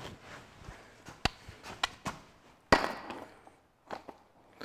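Quiet metal handling noises from a removed diesel engine piston and the parts around it: a few scattered light knocks and clicks, the firmest about three seconds in.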